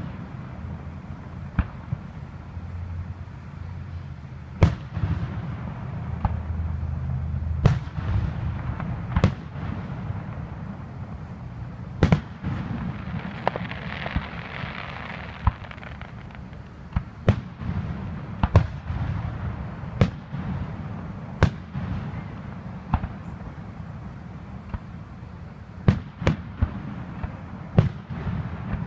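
Aerial fireworks shells bursting one after another, sharp bangs coming irregularly every second or two over a steady low rumble.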